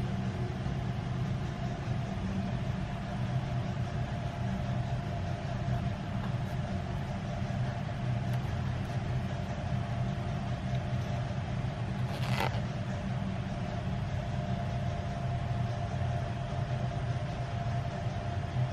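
A steady low machine hum with a faint steady higher tone over it, and a single brief sharp click about twelve seconds in.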